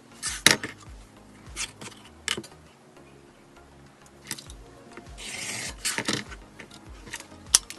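Acrylic quilting ruler and rotary cutter handled on a cutting mat: several sharp taps and clacks, the loudest about half a second in, and a brief scraping rub a little past the middle, over faint background music.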